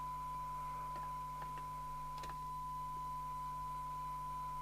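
Steady 1 kHz test tone from the Jopix GS60 CB radio receiving a tone-modulated test signal during a 20 dB SINAD sensitivity measurement, with a low steady hum underneath. A few faint clicks come about one and two seconds in.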